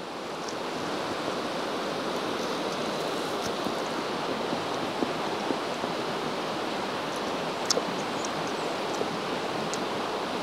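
Steady outdoor rushing hiss that swells over the first second and then holds, with a few faint sharp ticks scattered through it.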